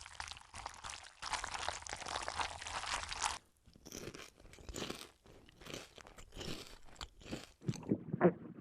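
Eating sound effects: a steady hiss for about three seconds, then a rapid, uneven run of crunching bites and chewing, ending in a few louder, deeper wet pops.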